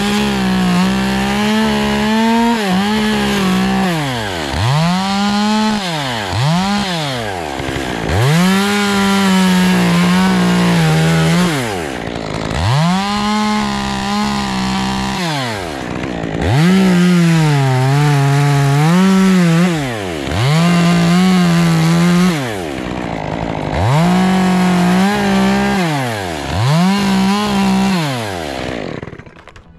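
Stihl top-handle two-stroke chainsaw revving up to full throttle and dropping back about nine times as it makes short cuts into a tree trunk: cambium cuts and a drainage hole around a carved wildlife hollow.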